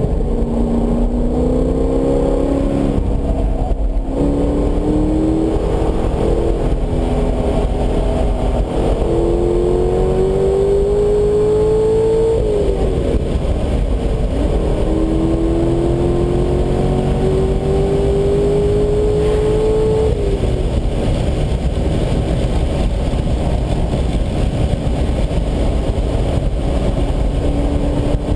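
Corvette V8 heard from inside the cabin, pulling hard at full throttle on track. Its pitch climbs and drops back at each upshift during the first twelve seconds, then climbs in one long pull until about twenty seconds in. After that it eases off and road and wind noise come to the fore.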